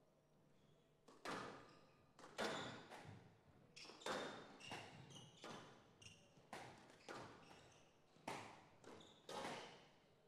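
Squash rally: the ball is struck by rackets and knocks off the walls in a run of sharp, echoing hits, about one or two a second, starting about a second in. Short squeaks of shoes on the court floor come between the hits.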